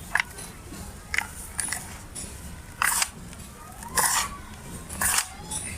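Dry sand-cement shapes being crushed and crumbling: a series of about seven short, gritty crunches at uneven intervals.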